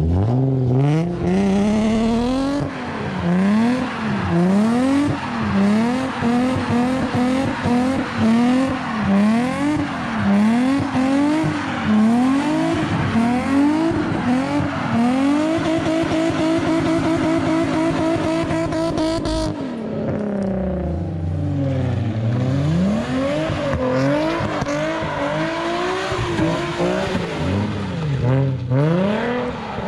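Infiniti G35's V6 through a Tomei exhaust, revved hard while the car drifts in circles on wet asphalt. The revs rise and fall about once a second, then hold high for a few seconds. About two-thirds of the way through they drop sharply, sweep low and climb again.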